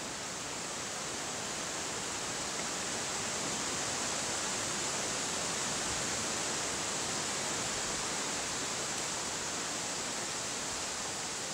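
Steady rushing, hissing noise that swells a little toward the middle and eases again.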